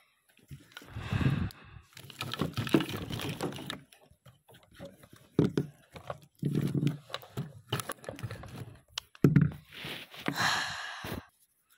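Irregular knocks, scrapes and rustling, as of things being handled.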